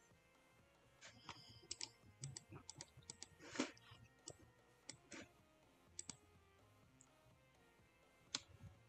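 Faint, irregular clicking of a computer keyboard and mouse: a quick run of clicks from about a second in, then a few scattered ones.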